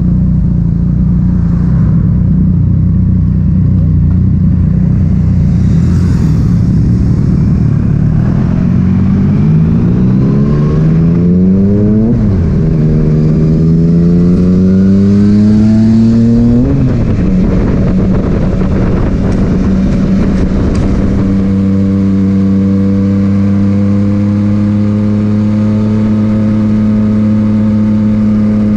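Yamaha MT-09 three-cylinder engine through an Akrapovic titanium exhaust, cruising at a steady pitch, then accelerating hard with the pitch climbing and dropping sharply at two upshifts. After that it settles back to a steady cruise.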